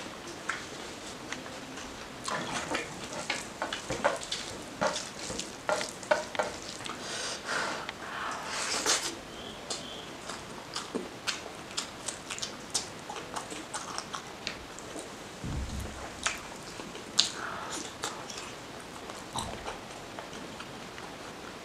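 Close-up eating sounds: wet chewing and lip smacks on fatty mutton curry and rice, with fingers squishing and mixing curry into the rice. The sounds come as irregular short clicks and smacks.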